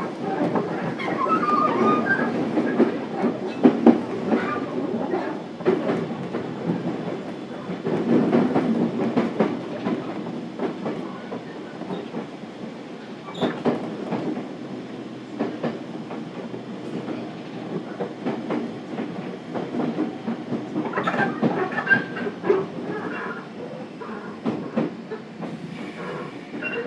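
Running sound inside a JR Kyushu 415 series 1500 subseries electric train's motor car: a steady rumble under the floor, with wheels clicking over rail joints. It is louder in the first half and eases somewhat after about twelve seconds.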